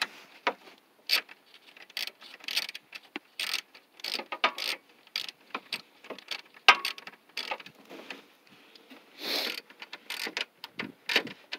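Hand ratchet with a 10 mm socket on an extension clicking in short, irregular runs as a small bolt on the radiator mounting is turned, with metal tool clinks and a louder clack about seven seconds in.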